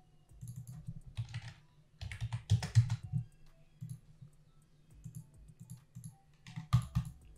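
Computer keyboard typing and mouse clicks, in short bursts about a second in, from two to three seconds in, and again near the end.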